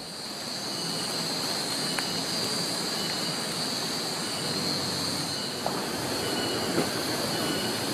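Steady outdoor ambience: a constant high-pitched insect drone over an even hiss, with faint short chirps recurring about once a second.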